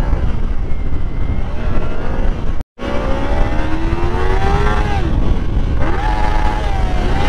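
Kawasaki Ninja parallel-twin engine under way, heard over a constant low rumble of wind on the microphone. After a short gap about two and a half seconds in, the engine note rises as it accelerates, drops near the middle, then holds steady.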